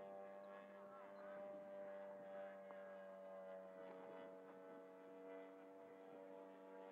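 Distant radio-controlled model airplane's motor droning steadily at full throttle, a faint hum whose pitch sags slightly about halfway through as the plane flies past.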